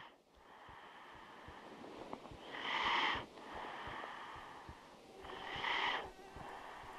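A sleeping person breathing heavily, with two loud, noisy breaths about three seconds apart over a faint background.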